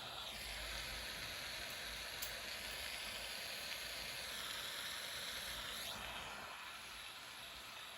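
Jeweller's gas soldering torch hissing steadily for about six seconds, then cut off, while heating silver for soldering.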